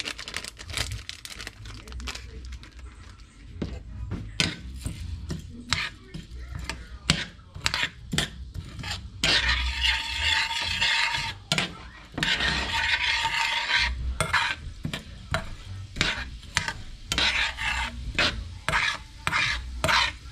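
Spatula scraping and tapping against a stainless steel frying pan as annatto seeds are stirred in hot oil to colour it: a long run of short clicks and scrapes, with two longer scraping strokes about ten and thirteen seconds in.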